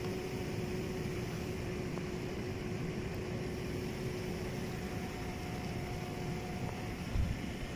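Steady mechanical hum with a constant tone over a low rumble. A second, higher tone joins for about two seconds past the middle.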